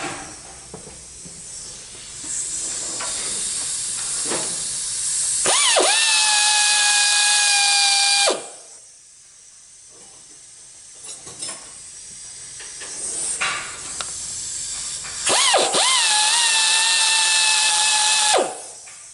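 Small high-speed grinder cutting channels into a worn transmission axle bushing to weaken it for removal. It runs in two long passes of about three seconds each, each rising quickly to a steady high whine over a hissing grind, with quieter grinding hiss before and between them.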